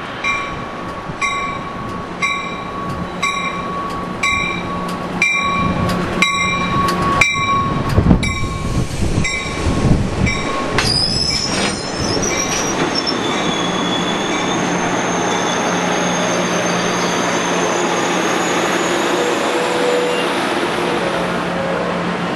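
Amtrak Capitol Corridor passenger train pulling into the station. A bell rings about three strokes every two seconds over the diesel locomotive's hum and fades as the locomotive passes with a loud rumble about eight seconds in. A high wheel-and-brake squeal follows as the bilevel cars roll by, slowing for the stop.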